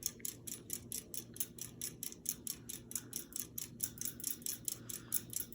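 Harbor Breeze Builders Best 52-inch ceiling fan running on low: a faint steady motor hum with a rapid, even ticking about eight times a second.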